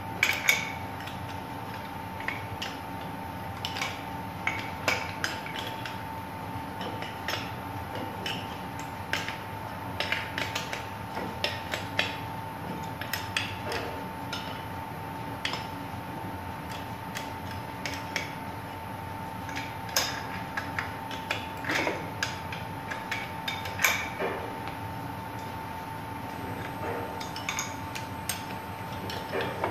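Irregular metal clinks and scrapes of an adjustable wrench and steel nuts on the flange bolts of a rubber pipe expansion joint, as the nuts are run down to take up the slack before tightening. A steady high hum runs underneath.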